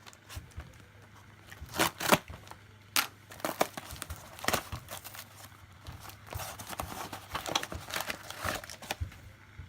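Mail-package wrapping being torn open and crinkled by hand: irregular crackling and rustling, with a few sharp rips about two and three seconds in.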